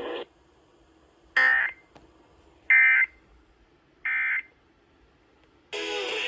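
Three short, buzzy data bursts of an Emergency Alert System end-of-message signal, a bit over a second apart, marking the end of the broadcast warning. Near the end a louder, steadier sound with several held tones begins.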